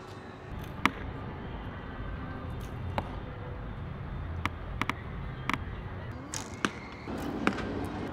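Archers shooting wooden recurve bows: a string of about seven sharp, irregularly spaced snaps from arrows being loosed and striking the target, over a steady low background noise.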